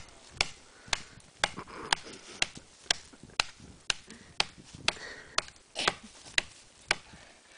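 Axe chopping into the trunk of a standing spruce, sharp blows coming about two a second in a steady rhythm.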